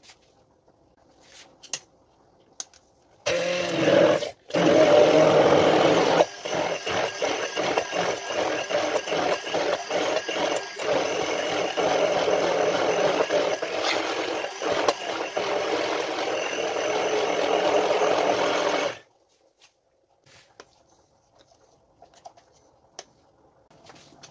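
Electric immersion blender running in a tall plastic beaker, puréeing minced meat, tomatoes and burrata into a thick sauce. It starts about three seconds in, stops for a moment, then runs steadily with a rattle of chunks against the blade until it cuts off suddenly about five seconds before the end.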